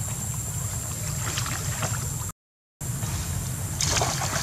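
Water splashing and sloshing as a macaque thrashes in a shallow muddy stream, over a steady low rumble. The sound cuts out for about half a second halfway through, and the splashing grows louder near the end.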